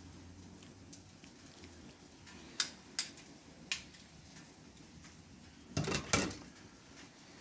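Metal kitchen tongs clicking and clattering: three sharp clicks in the middle, then a louder double clatter about six seconds in.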